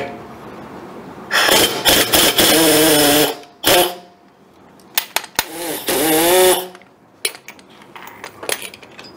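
Air impact wrench running in three bursts as it loosens a car's wheel lug nuts: a long one of about two seconds, a short one, and another of about a second. Its pitch wavers up and down within each burst.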